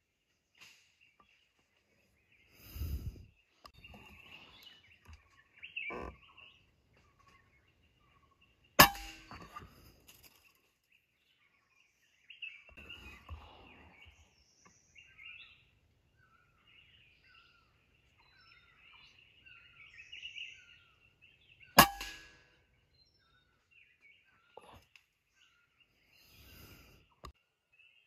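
Two shots from a PCP air rifle, sharp cracks about thirteen seconds apart, the first the louder. Small birds chirp between them.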